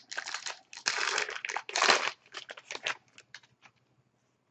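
Wrapper of an Upper Deck SPx hockey card pack crinkling as it is opened by hand, in several irregular crackling bursts over about three seconds, loudest about two seconds in.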